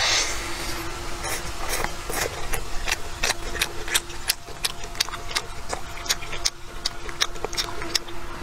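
Close-up chewing of a rolled pancake wrap with a shredded vegetable and chili pepper filling: a bite at the start, then wet mouth clicks and smacks a few times a second as it is chewed.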